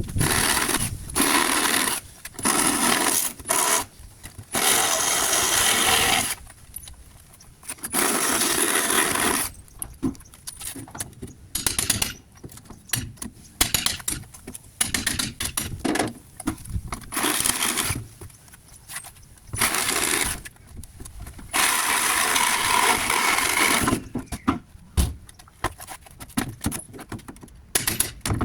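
Reciprocating saw with a demolition blade run in repeated short bursts of one to two seconds, cutting through the nails that hold pallet boards. Sharp knocks and wooden clatter come between the cuts as boards come loose.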